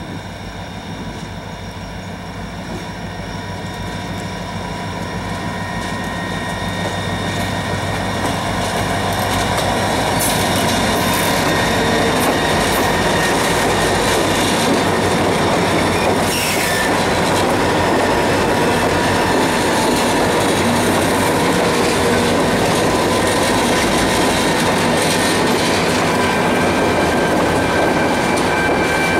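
Train with diesel locomotives approaching slowly and then passing close by, engine running and wheels rolling on the rails. It grows louder over the first dozen seconds and then holds steady and loud.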